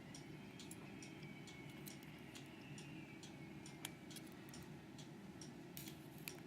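Faint, scattered small clicks and taps of padlock parts being handled while the lock's pin stacks are taken out, with a few louder clicks about four seconds in and near the end.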